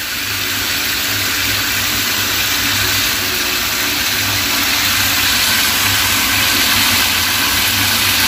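Hot water spraying steadily from a kitchen faucet's pull-out spray head onto a stainless steel sink basin and down the drain, flushing grease from a clogged drain pipe. A steady low hum runs underneath.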